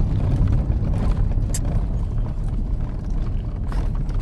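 Steady low rumble of a car's engine and tyres heard from inside the cabin as the car rolls slowly over cobblestones, with one light click about one and a half seconds in.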